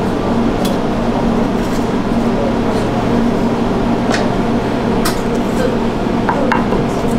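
A steady mechanical hum, with a few light clicks and clinks from a knife and a ceramic plate being handled; the clicks come a few times, with a small cluster near the end.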